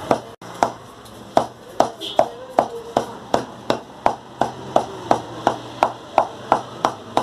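Steel meat cleaver chopping meat into mince on a round wooden block, a steady run of sharp chops about two and a half a second.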